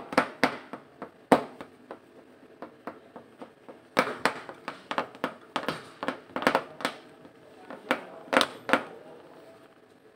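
Irregular sharp clicks and taps close to the microphone, coming a few a second in bunches with short gaps, made around a kitten nosing about a wooden slatted floor. The clicks thin out near the end.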